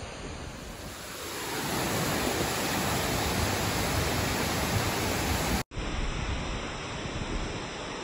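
A large, steep waterfall about 90 m high, with water cascading over rock slabs in a steady rush. The rush grows louder about a second in, breaks off for an instant past the middle at a cut, then carries on slightly quieter.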